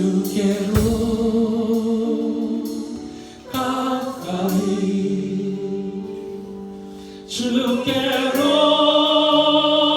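Church singers performing a slow Korean worship song in long held notes. Near the end a voice holds a note with a clear vibrato.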